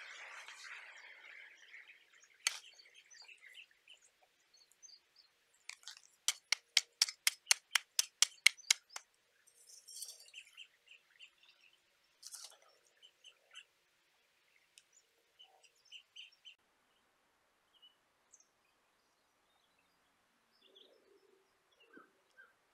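A small shovel scraping and scooping loose garden soil, then a rapid run of about a dozen sharp clicks, about four a second, followed by scattered short bird chirps.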